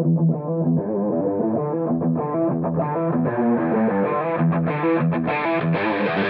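Intro music: electric guitar rock riff with a steady rhythm, growing brighter and fuller toward the end.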